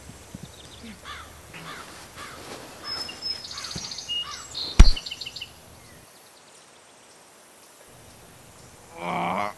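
Outdoor ambience with small birds chirping repeatedly through the first half, a single sharp thump about five seconds in, and a short voiced sound near the end.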